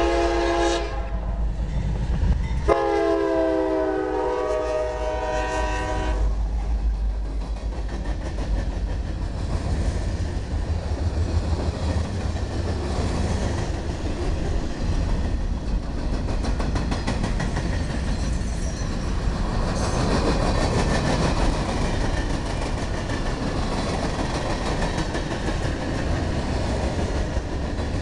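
A CSX freight train's diesel locomotive sounds its air horn: one blast ends about a second in, then a second blast lasts about three and a half seconds as the engine passes. After that comes the steady rumble and clickety-clack of covered hoppers and tank cars rolling by on the rails.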